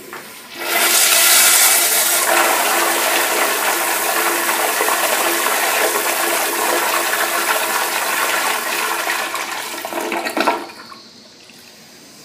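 Commercial flushometer toilet (Crane Hymont bowl) flushing: a loud, steady rush of water that is very powerful and long, lasting about ten seconds, then cutting off fairly suddenly.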